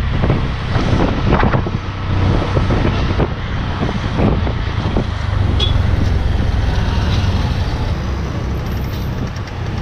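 Auto-rickshaw (tuk-tuk) ride heard from inside the cabin: the small engine running steadily under road and traffic noise, with a few short knocks and rattles in the first half.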